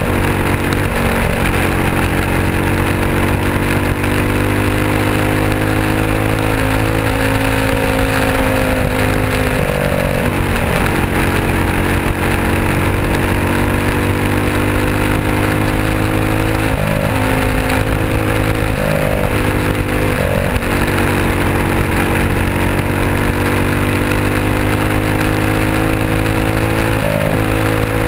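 Onboard sound of a winged open-wheel dirt-track race car's engine running at high revs, with the pitch dipping briefly and coming back up about five times as the throttle is lifted and reapplied, over rushing wind noise.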